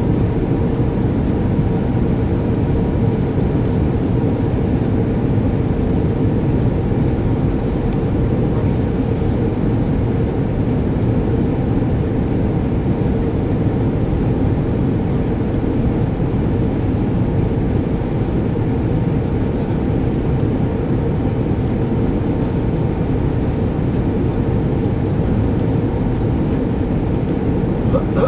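Steady airliner cabin noise inside an Airbus A340-600 during its descent: the even drone of its Rolls-Royce Trent 500 engines and the rush of air past the fuselage, with a faint steady hum.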